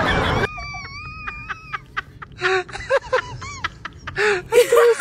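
High-pitched whining vocal sounds: a drawn-out wavering whine, then short squeaky cries, with bursts of laughter.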